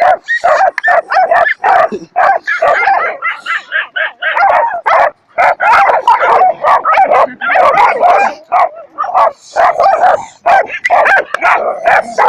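A dog vocalizing without a break: a rapid run of short, high barks and yips, several a second, with a few longer drawn-out calls among them.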